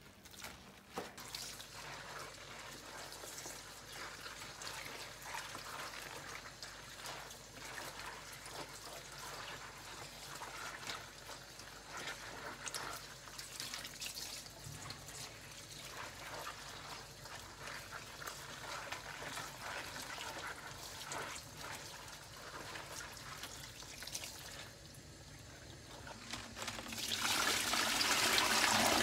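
Wet salted napa cabbage halves being handled and rinsed in a plastic basin with rubber-gloved hands: irregular wet rustling, squelching and splashing. Near the end a kitchen tap runs steadily and more loudly onto the cabbage for the second rinse.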